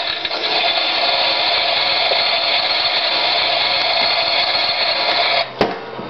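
Miele toy washing machine's small electric motor whirring steadily and high-pitched as the machine drains, then cutting out abruptly about five and a half seconds in, followed by a click.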